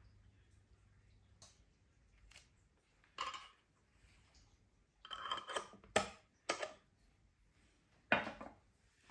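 Lids being put on filled glass jars of marmalade and the jars handled on a metal baking tray: a handful of separate clinks and knocks, with a close cluster about five to six and a half seconds in and a sharp knock near the end.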